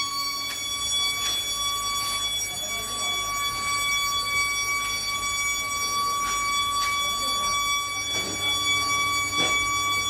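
A steady high-pitched machine whine from the foundry runs throughout, with irregular metallic clanks and knocks as an iron rod is jabbed into burning scrap metal at the furnace.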